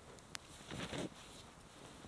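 A reindeer hide being shaken out by hand: a short sharp click, then one loud flap just under a second in.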